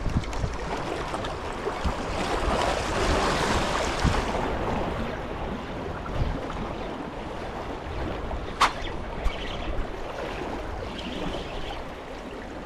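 Sea water washing and splashing against the concrete blocks of a breakwater, swelling for a couple of seconds early on, with wind on the microphone. A single sharp click about two thirds of the way through.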